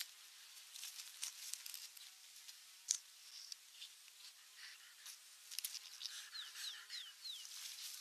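Faint crackle with scattered sharp clicks and rustles of nest sticks as a raven pecks about the nest, one click sharper than the rest about three seconds in. About six seconds in a bird gives four quick descending chirps.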